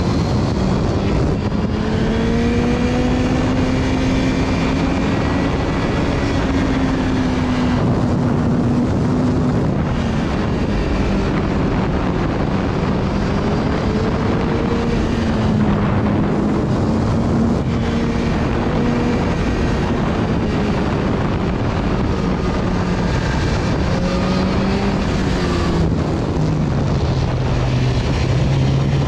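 BMW S1000RR's inline-four engine running under a rider's throttle, its note rising and falling gently and dipping lowest near the end, over steady wind and road noise.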